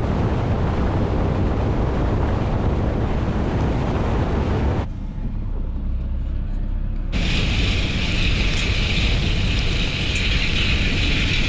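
Tractor engine running in the field, mixed with heavy wind noise on the microphone. The sound changes abruptly twice, thinner about five seconds in and brighter, with more hiss, from about seven seconds.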